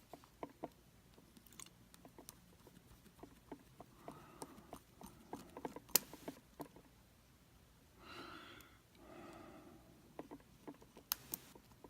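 Faint, scattered small metallic clicks and taps of a Dexter by Schlage lock being taken apart by hand.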